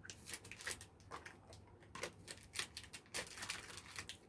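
Chocolate packaging crinkling and crackling as it is handled, a quick irregular run of small crackles.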